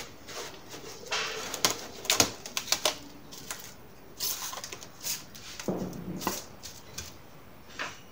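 Plastic cling film crinkling and rustling as it is stretched over a bowl of dough and pressed down by hand, in irregular crackly bursts.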